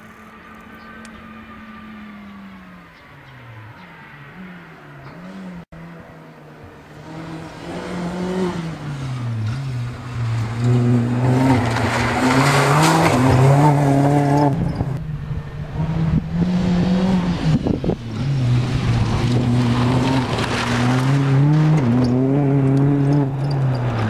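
Rally car engine at full effort, its note climbing and dropping again and again through gear changes and lifts. About halfway through it passes close by on loose gravel, with a burst of tyre and stone noise. A fainter engine slowing down is heard at the start.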